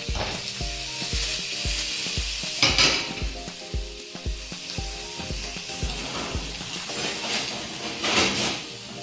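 Prawns sizzling in hot sunflower oil in a frying pan as they are stirred, with louder spells of sizzle about three seconds in and again near the end.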